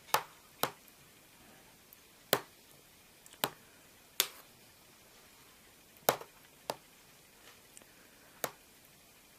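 Spoon clinking against an enamel bowl while stirring food: about eight sharp, short knocks at irregular intervals.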